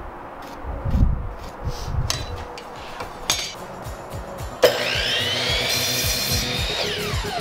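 A few knocks of wood and tools on the benchtop, then a Ryobi miter saw's motor starts about two-thirds of the way in with a rising whine, runs at speed, and winds down near the end as the trigger is released.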